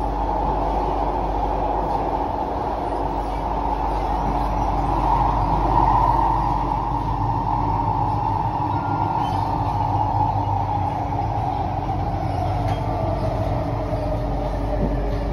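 Interior running noise of a Kawasaki–CSR Qingdao Sifang C151A MRT train in a tunnel, heard from inside the car: steady rumble and rail noise under a whining hiss. The whine swells about six seconds in, then falls in pitch over the last few seconds as the train slows into a station.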